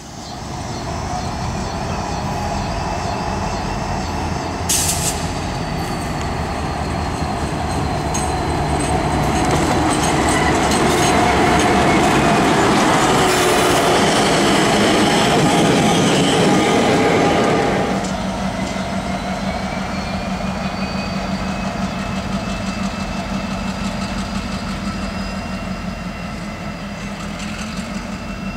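Diesel-electric locomotives, an EMD SD70 leading a second unit, running light past at low speed. The engine drone and wheel noise build to a peak, then drop away suddenly about 18 seconds in as the units pass, leaving a steadier drone. A thin high wheel squeal runs over it, with a sharp click about 5 seconds in.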